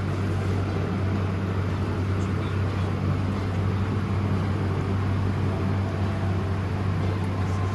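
A steady low hum, even and unbroken, with a faint hiss over it.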